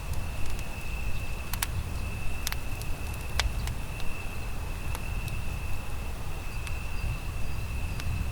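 Campfire crackling with scattered sharp pops, over a steady high-pitched insect trill and a constant low rumble.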